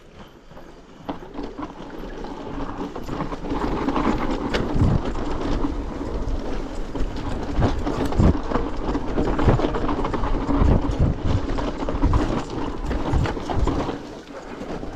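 Yeti 160E mountain bike ridden fast down a loose dirt trail: tyres rolling and scrubbing over the dirt, with repeated thuds and rattles from the suspension and drivetrain over bumps. It starts quieter and builds after about two seconds as speed picks up.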